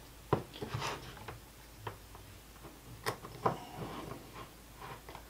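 Irregular light clicks and taps of alligator-clip test leads being handled and clipped onto the spade terminals of a small HVAC capacitor.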